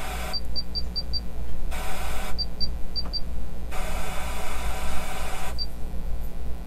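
Pioneer car stereo head unit tuning its radio with no station found: bursts of static hiss through the Kicker speakers that cut in and out, and quick runs of short high beeps from the touchscreen, over a steady low hum.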